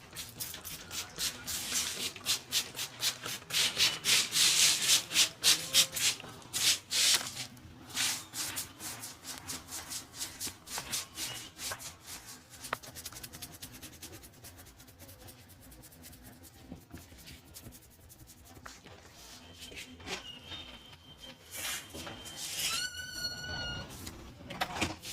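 Barber's hands rubbing briskly through the hair and over the scalp in rapid strokes during a head massage, loudest in the first several seconds and softer after. Near the end a brief high pitched tone sounds once.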